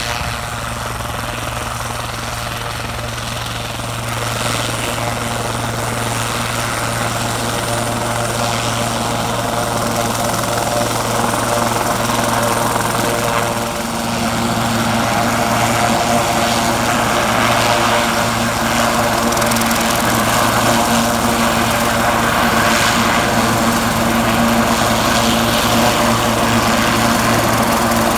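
Sikorsky S-76C+ helicopter taxiing, its twin Turbomeca Arriel turboshaft engines and rotors running steadily. The sound grows louder as the helicopter comes closer, with a brief dip about halfway through.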